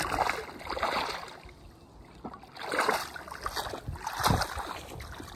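Water sloshing and splashing in a few irregular swells close by, with some wind on the microphone.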